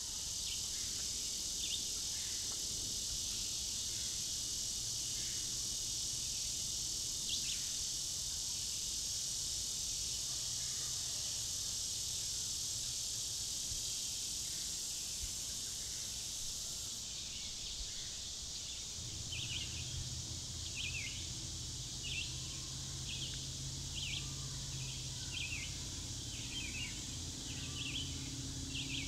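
Outdoor summer ambience: a steady, high-pitched insect chorus. Past the middle a bird starts giving short chirps about once a second, over a low steady hum.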